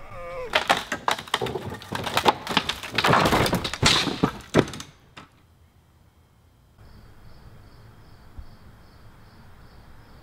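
A wooden backyard play structure pulled over and collapsing: boards and posts crashing and clattering for about four seconds, then stopping.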